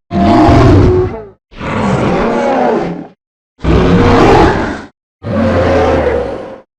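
Titanoceratops dinosaur creature sound effect: four separate deep growling calls, each lasting about a second and a half, with brief silences between them.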